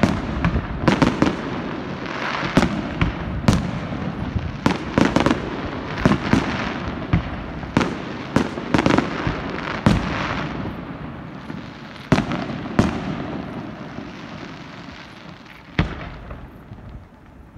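Fireworks display: a rapid series of sharp aerial bursts over a steady crackle, thinning out in the second half to a few single bangs as the crackle fades.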